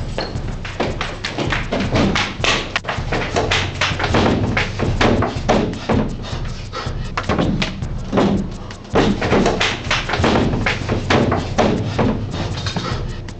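Staged fistfight hits: a fast run of thuds and slaps, several a second, with louder blows here and there.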